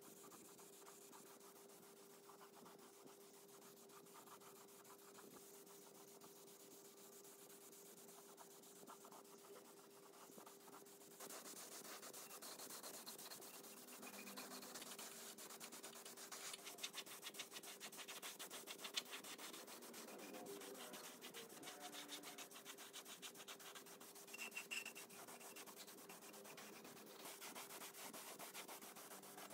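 Faint abrasive rubbing, like sanding by hand on a metal part, over a faint steady hum; the rubbing gets louder about eleven seconds in.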